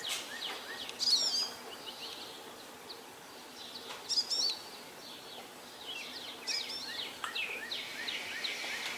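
Songbirds singing: short warbled phrases recur every two to three seconds over a run of small repeated chirps and faint outdoor hiss.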